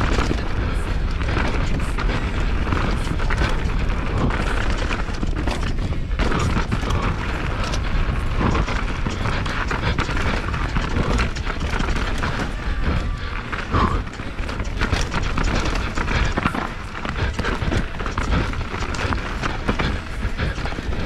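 YT Jeffsy full-suspension mountain bike descending a rough enduro trail, heard from a GoPro: wind rushes over the microphone while the bike rattles and knocks over roots and rocks.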